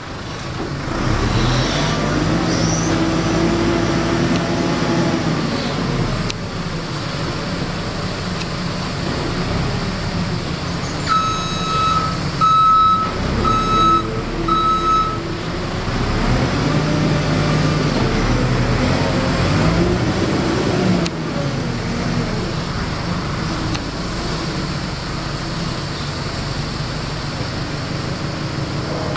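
JCB Loadall telehandler's diesel engine running, its pitch rising and falling as it revs up and settles while the machine moves and lifts bales. About halfway through, its reversing alarm beeps four times.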